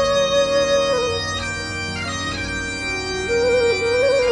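Instrumental devotional music: a slow, sustained wind-instrument melody held over a steady drone. There is no singing.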